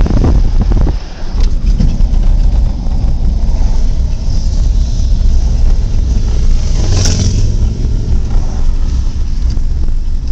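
Heavy diesel road-construction machinery running steadily, a loud low rumble, with a short hiss about seven seconds in.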